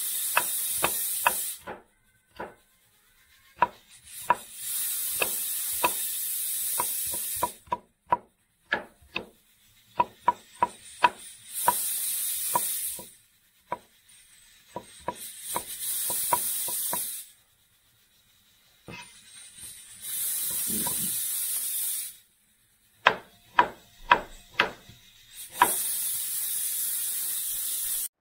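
Kitchen knife chopping on a wooden cutting board in quick runs of sharp knocks, alternating with several stretches of a steady high hiss that start and stop abruptly.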